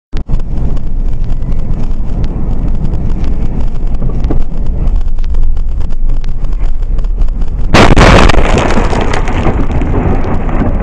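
Steady road and engine rumble inside a car, picked up by a dashcam, with small clicks and rattles. About eight seconds in comes a sudden loud crash as the car collides with an oncoming truck, followed by a long rush of noise that slowly dies down.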